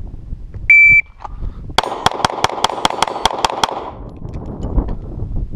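A shot timer's start beep, one steady high tone about a third of a second long. About a second later comes rapid fire from a Smith & Wesson M&P 9 pistol: ten 9mm shots at about five a second, ending just under three seconds after the beep.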